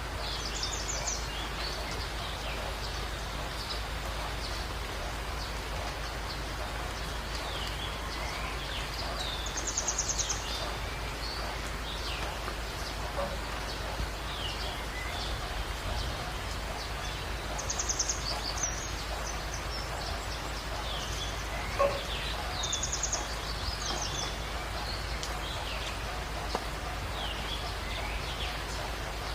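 Birds chirping and calling over a steady outdoor hiss, with a short buzzy trill coming back four times and one sharp click about two-thirds of the way through.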